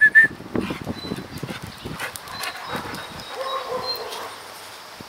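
A dog whining: a quick run of short high-pitched whimpers right at the start, and a fainter, lower drawn-out whine about three and a half seconds in, with soft irregular scuffing in between.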